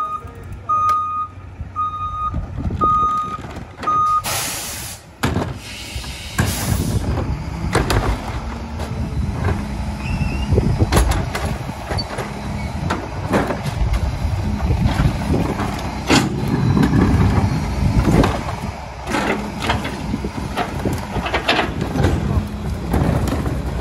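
Split-body rear-loader garbage truck: its reversing beeper sounds about once a second for the first four seconds, then two loud bursts of air hiss. After that the diesel engine runs under load while the rear cart tippers lift and dump wheeled bins into the hopper, with repeated bangs of the plastic carts against the tipper and hopper.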